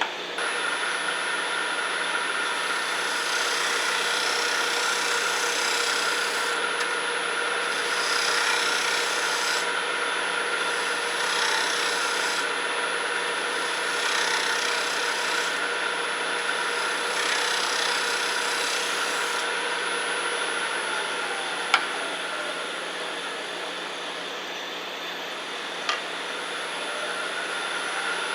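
Wood lathe running with a steady motor whine while a round cutter shear-cuts the spinning sweet gum, the cutting heard as repeated scraping passes of a few seconds each. In the last third the cutting stops and two sharp clicks sound.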